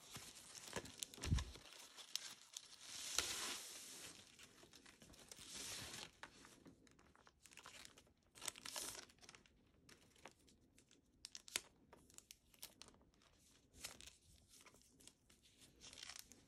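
Faint, intermittent rustling and crinkling of packaging as a leather bag strap is unwrapped and handled, with a few light clicks.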